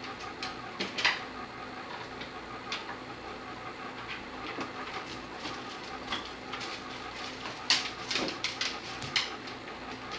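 A dog rummaging in a refrigerator: scattered light clicks and clatters over a steady hum, with a quick run of them about eight seconds in.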